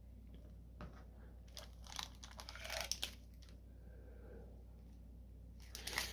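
Faint crinkling and tearing of plastic packaging wrap being handled and pulled open, in two spells: from about one to three seconds in, and again near the end.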